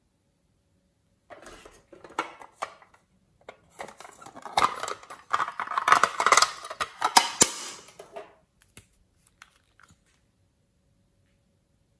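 Small hard plastic cosmetics being handled: a lipstick tube scraped and clicked against a pink plastic makeup case, in a run of sharp clicks and scratchy scrapes that begins about a second in and thins out near the end.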